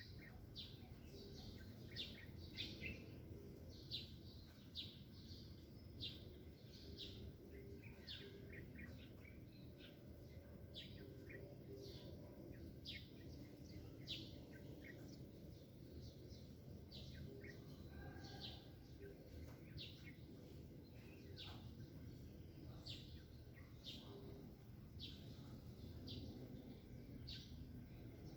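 Small birds chirping: short, high, clipped chirps repeating about once a second, over faint low background noise.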